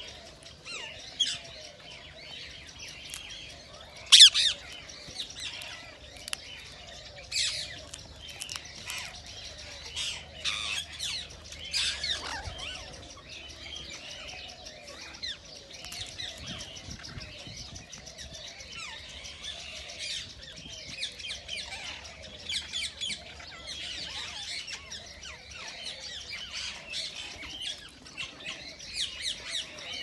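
Indian ringneck parakeet calling with many short, shrill squawks and chirps, the loudest squawk about four seconds in and a quick run of chirps near the end.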